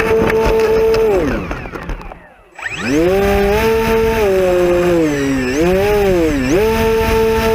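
Electric motor and propeller of a radio-controlled model plane running at high throttle, throttled back to a stop about two seconds in, then opened up again. The pitch rises, dips twice, and settles back at full throttle near the end.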